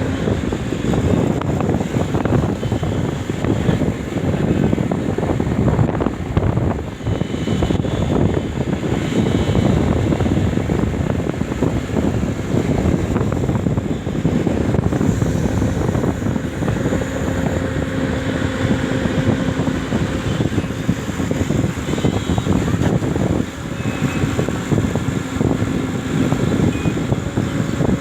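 Hyundai 140 excavator working, its diesel engine running steadily under load. A steady hum comes through more clearly in the second half.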